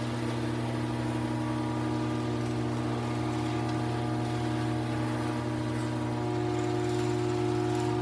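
Screw-drive garage door opener running steadily as it lowers the door: an even motor hum with no change in pitch.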